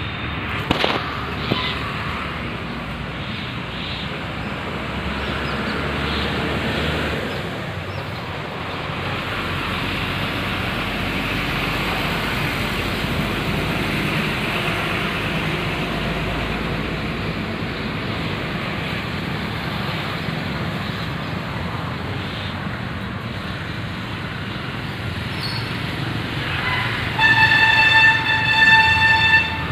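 Steady traffic noise, with a loud high-pitched vehicle horn sounding for about two seconds near the end.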